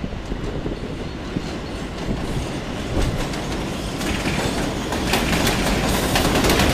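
New York City Subway R142 train running through the station: a steady rumble that grows louder, with the wheels clicking rapidly over rail joints from about four seconds in.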